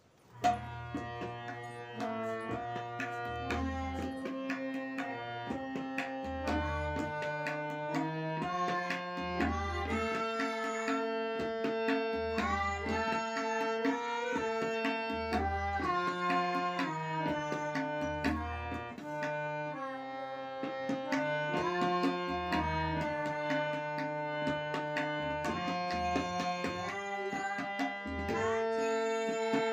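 Harmonium playing a melody in sustained reed notes, accompanied by tabla: deep bayan strokes every few seconds under the sharper strokes of the dayan.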